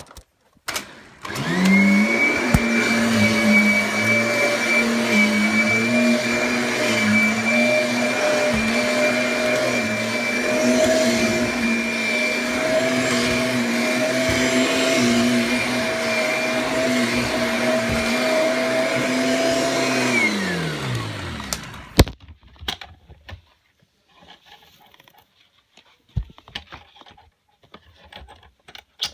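Kirby Sentria upright vacuum cleaner switched on, its motor spinning up quickly to a steady whine, running for about twenty seconds and then switched off, winding down with a falling pitch. A few clicks and knocks follow in the quiet.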